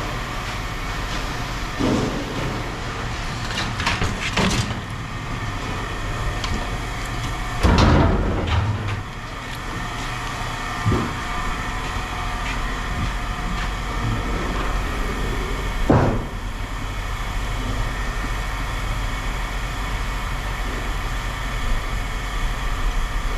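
A vehicle engine idling steadily under scattered knocks and clanks, about half a dozen of them, the loudest about 8 and 16 seconds in.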